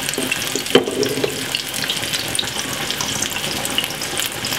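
Marinated chicken thighs sizzling in hot oil in a frying pan as they brown: a steady hiss with light crackling, and one sharp tick about a second in.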